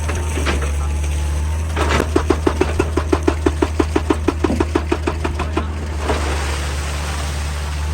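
Excavator engine running steadily while a hydraulic rock breaker hammers in a fast, even series of blows, about five or six a second. The hammering starts about two seconds in and stops a little past halfway, followed by a rushing noise.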